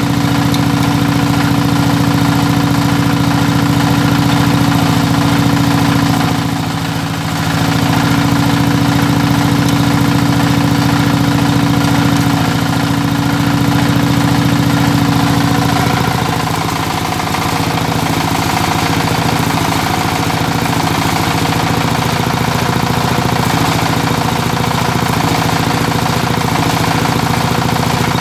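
Engine of a welding generator set running steadily; its note changes and turns rougher a little past halfway through.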